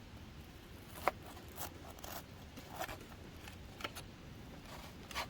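Faint, scattered clicks and light scrapes of small objects being handled, the sharpest click about a second in.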